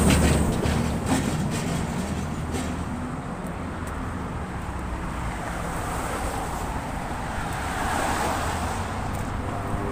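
Road traffic on a wide street. A heavy truck's engine is loudest at the start and fades as it moves away, then there is a steady wash of passing cars' tyres and engines, and another vehicle swells past about eight seconds in.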